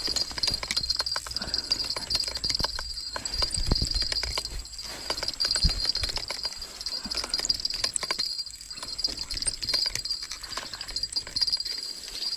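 Shimano Siena 4000 spinning reel being cranked to bring in a hooked baung catfish, giving irregular clicking and rattling with a few low bumps. A steady high insect drone runs underneath.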